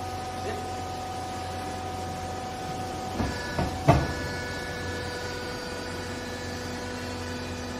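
Small vertical hydraulic cloth baler running, its pump motor giving a steady hum. Three knocks come between about three and four seconds in, the last the loudest, as the controls are worked, and then the machine's tone changes as the press moves.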